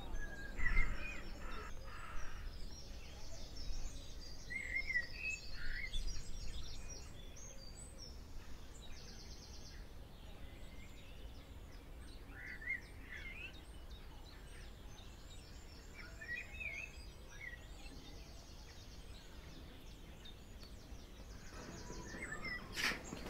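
Small birds chirping and singing in short bursts over a low, steady outdoor rumble, with a brief sharp rustle near the end.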